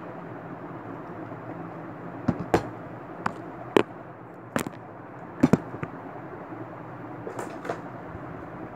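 Objects handled close to the microphone: about a dozen sharp clicks and knocks in the middle, and two fainter ones later, over a steady background hiss.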